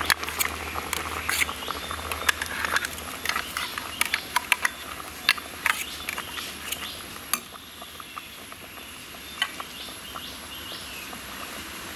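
Stainless steel mixer-grinder jar being knocked and scraped to empty ground coconut paste into a steel pot: a run of sharp metallic clicks and knocks that thins out after about seven seconds.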